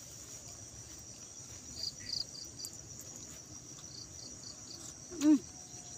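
Steady high-pitched chirring of crickets, with two short runs of quick chirping notes. About five seconds in comes a brief hummed 'mm' from a person's voice after a sip of coffee.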